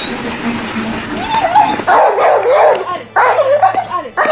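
A dog yelping and whining in repeated high cries that rise and fall, starting about a second in, after a steady hiss.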